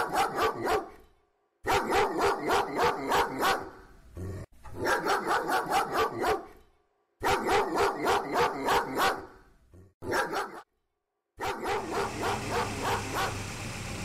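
Dog barking in quick runs of several barks, each run about two seconds long, with short silent pauses between them.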